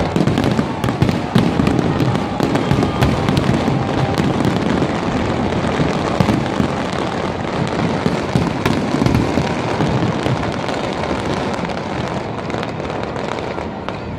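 Fireworks display going off: a dense, continuous run of crackling bangs and booms, easing off slightly near the end.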